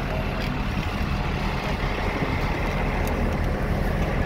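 Engine of a large emergency vehicle idling at a standstill: a steady low drone.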